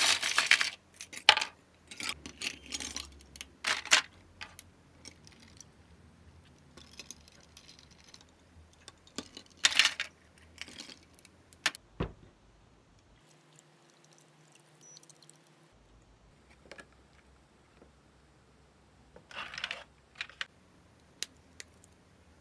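Ice cubes clinking and clattering as they are scooped out of a plastic ice storage bin, a dense run of clatters in the first few seconds. A few shorter bursts of clatter and clicks follow about ten seconds in and near the end.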